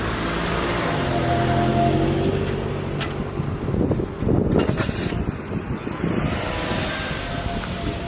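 A vehicle passing close by, its running tone sliding down in pitch, followed by a louder rough clatter about four to five seconds in.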